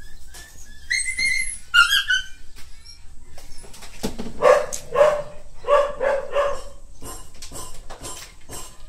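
A dog whining in high-pitched cries about a second in, then giving four lower barks in a quick series around the middle.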